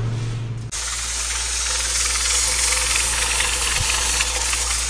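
Stovetop pressure cooker hissing steam from its weighted pressure valve: the cooker is up to pressure and venting. The hiss starts suddenly about a second in and stays loud and steady.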